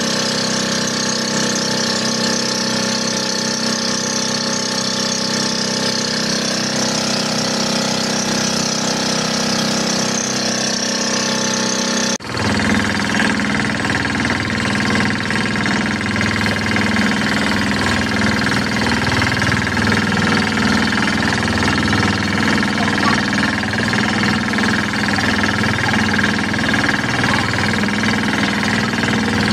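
A small fishing boat's engine running steadily. About twelve seconds in there is a brief dip, after which the engine sounds deeper and a little louder.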